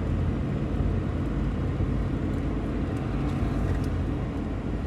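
Semi truck's diesel engine running steadily under load, with road noise, heard from inside the cab as a continuous low drone.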